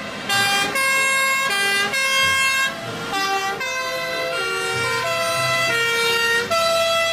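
A toy fire engine's electronic tune: short, steady buzzy notes that step up and down in pitch, one after another.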